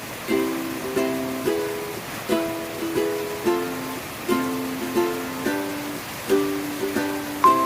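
Background music: a plucked ukulele tune, strummed chords at a steady, unhurried beat.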